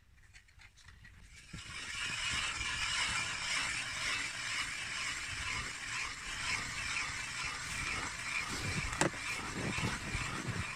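Hand-cranked ice auger boring through lake ice: a steady scraping crunch of the blades shaving ice, starting about a second and a half in, with a single sharp click near the end.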